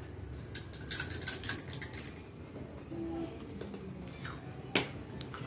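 Crunching as crisp fried rose cookies are bitten and chewed, a quick run of crackly clicks, then quieter. A single sharp click near the end is the loudest sound.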